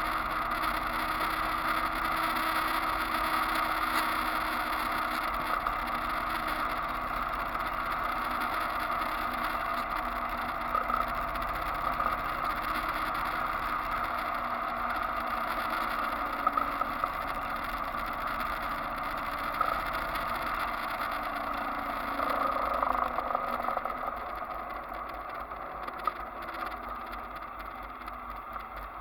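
Motorcycle engine running at road speed, mixed with wind and road noise. It gets a little quieter in the last few seconds as the bike eases off.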